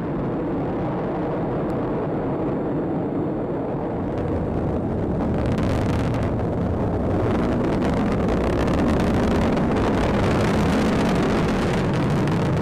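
Launch noise of an Atlas V rocket's RD-180 main engine and two solid rocket boosters during ascent: a steady low rushing rumble that grows a little louder and fuller about halfway through.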